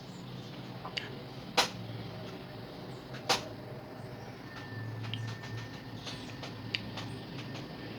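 Hard clicks and knocks of a small plastic quadcopter and tools being handled during repair, two of them sharp and loud, then a run of lighter ticks, over a steady low hum.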